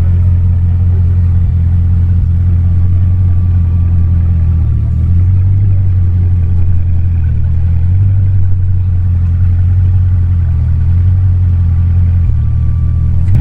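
Bugatti Chiron's quad-turbocharged W16 engine idling steadily, a deep even note with no revs.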